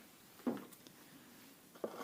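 Faint handling sounds of the part and its cardboard packaging being unpacked: a soft thump about half a second in and a sharp click near the end.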